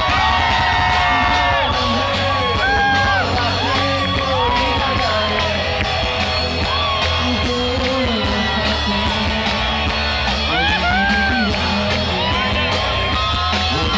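Live band performance over a loud PA: a male singer singing a melody over guitars and a steady bass line.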